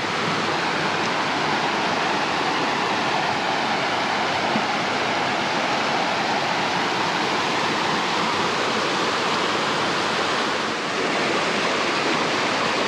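Mountain creek rushing steadily over rocks and small cascades.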